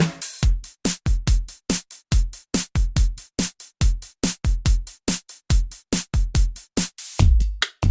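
Drum machine beat: a programmed drum-kit pattern of kick, snare and hi-hat from a looper or drum pedal, about five hits a second, with a louder sustained low hit near the end.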